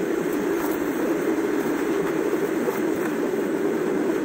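Steady cabin noise of a car on the move, road and engine noise heard from inside.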